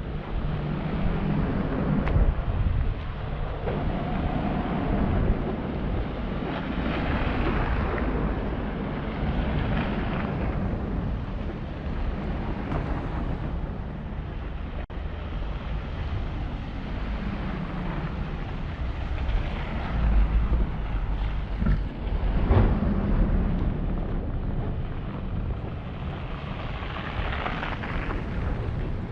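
Snowstorm wind buffeting the microphone over steady city street noise, with a few swells as vehicles pass on the snowy street.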